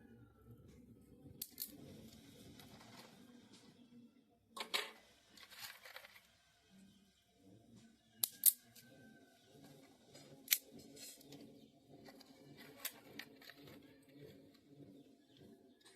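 Fire being lit in a clay stove: a few sharp snaps and cracks, some followed by a short hiss, over faint crackling.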